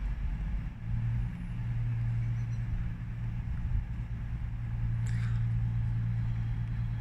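Steady low electric hum of a train at a railway station, setting in about a second in and holding level over a low rumble, with a brief faint higher sound about five seconds in.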